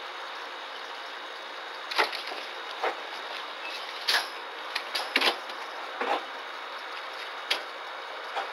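Small monkey moving around its wire-mesh cage, making about ten irregular clicks and taps that start about two seconds in, over a steady background hiss.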